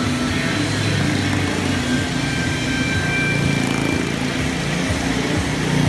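Motorcycle engine running steadily as the bike rides around the vertical wooden wall of a motordrome.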